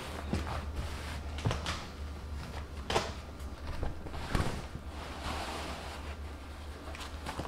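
Fabric slipcover being pulled and tugged over a sofa section: cloth rustling with about four short knocks and thumps as the cushion frame is handled, over a low steady hum.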